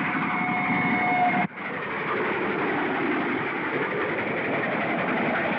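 Steam train running at speed, its whistle holding a steady note over the rushing noise of the train until it cuts off abruptly about a second and a half in; the train's rushing, rattling run on the rails continues after.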